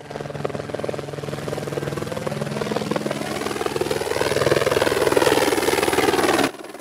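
Helicopter rotor chopping as it approaches, growing steadily louder, with its pitch rising and then falling, before it cuts off suddenly near the end.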